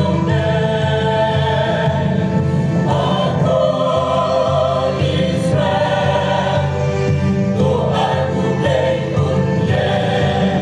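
A mixed choir of women's and men's voices singing a Christian hymn, the notes held for about a second or two each.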